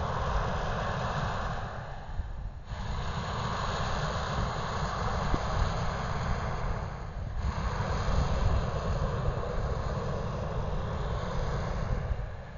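Hot-air balloon propane burner firing in long roaring blasts, with short breaks about two seconds in and about seven seconds in. Wind rumbles on the microphone underneath.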